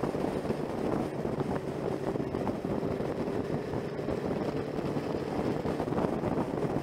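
Motorcycle engine running at a steady cruise, heard from the bike itself, mixed with heavy wind rush on the microphone.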